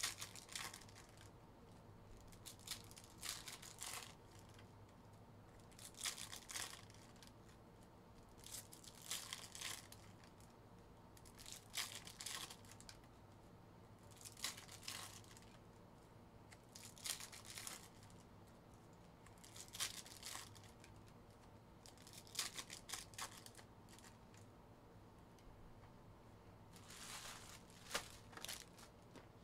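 Foil trading-card pack wrappers being torn open one after another, a short crinkly tear every two to three seconds, about ten in all.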